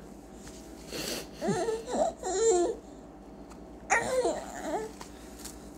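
Baby babbling: two short runs of high, wavering vocal sounds, the first about a second in and the second near four seconds.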